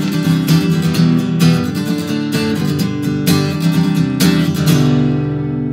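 Acoustic guitar strummed in a steady rhythm. The last strum comes just before the end, and that chord is left ringing and slowly fading.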